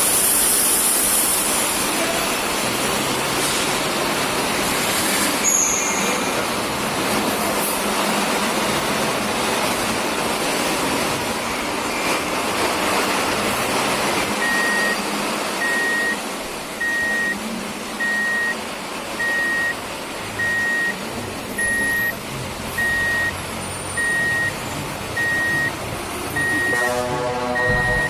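Vehicle reversing beeper: after a stretch of steady noise, one high beep sounds about once a second from about halfway on. A horn toots briefly near the end.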